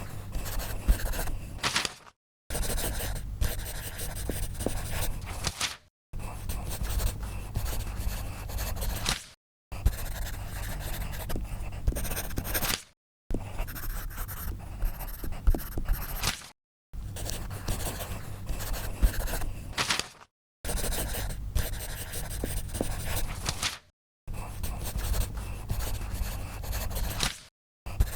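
Scribbling sound effects: a pen scratching quickly back and forth on paper, in a series of separate scribbles about three seconds each, with a brief silence between them.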